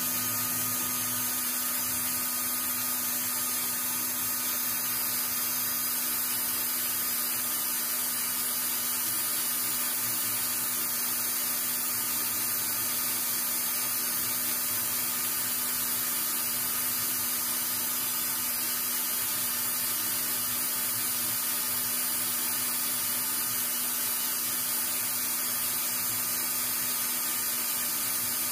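Small electric motor running steadily with a hum and a hiss, spinning a pool cue shaft while sandpaper on a block trims the mushroomed edge of its leather tip.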